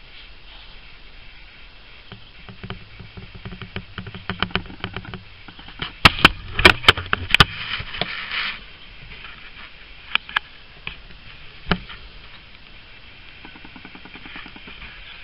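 Handling noise: a run of sharp clicks and taps with some rustling. It builds a couple of seconds in, is loudest with a cluster of hard clicks around the middle, and ends with a few single clicks.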